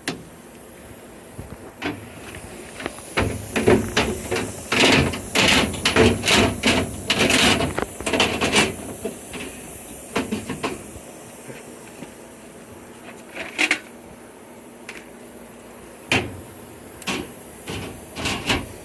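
Sandblast cabinet being put together and handled: a busy run of clattering knocks and bangs for several seconds, then a few single knocks, over a steady hiss.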